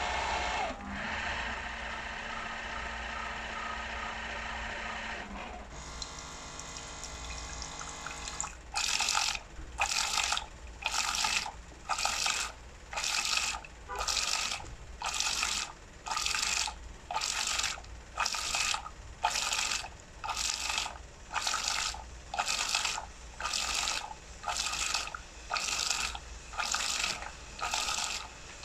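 Okka Turkish coffee machine brewing: a steady motor hum for about five seconds as water fills the pot, then, from about eight seconds in, rhythmic hissing pulses a little over one a second as the coffee heats and begins to foam.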